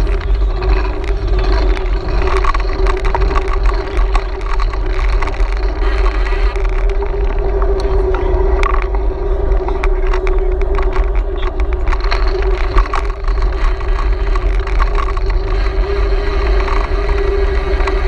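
Bicycle riding on pavement, heard from a camera mounted on the ride: wind buffeting the microphone in a heavy low rumble, over a steady tyre and road hum with scattered small clicks and rattles.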